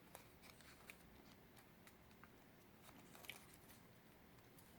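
Faint crinkling and small clicks of a sheet of origami paper being folded and creased by hand.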